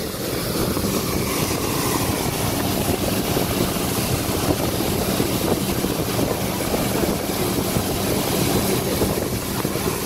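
Motorboat running at speed: a steady engine drone under the rush of water spraying off the hull, with wind buffeting the microphone.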